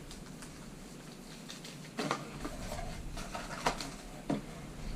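Camera packaging and accessories being handled: a few light knocks and rustles, the sharpest about two seconds in and again near four seconds.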